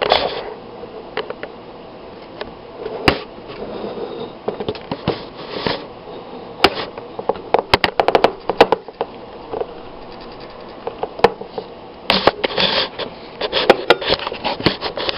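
Handling noise of cables and connectors: scattered clicks, taps and scrapes as an RCA phono plug is worked into the input jack of a phono preamp. A cluster of quick clicks comes about eight seconds in, and the clicking gets busier near the end.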